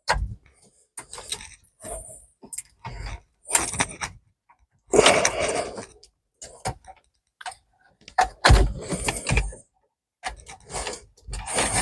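Plastic wiring-harness connectors being unclipped and pulled from the back of a car radio head unit: irregular plastic clicks and rustling of wires and trim. The longest bursts come about five seconds in and about eight and a half seconds in.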